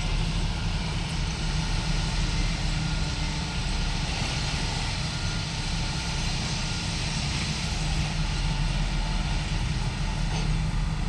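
Diesel locomotive running steadily, a constant low engine rumble under a broad hiss.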